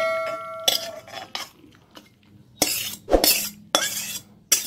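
Metal spatula scraping and knocking against steel cookware while a cooked pumpkin and pui shaak curry is scooped from the pan into a pot. A ringing metal tone fades out within the first second, followed by irregular clinks and scrapes.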